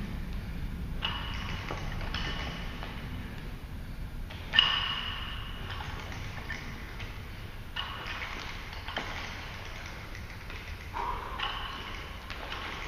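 Loaded barbell with plates clanking and ringing in a string of sharp metallic knocks as it is worked through repeated reps, one every second or two, with one louder clang about four and a half seconds in.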